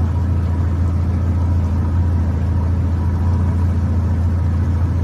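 Outboard motor of a rescue boat running at a steady idle, a constant low hum with no change in speed.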